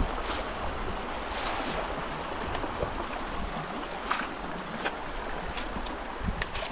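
Moving water and wind on the microphone, with a few short splashes or knocks scattered through.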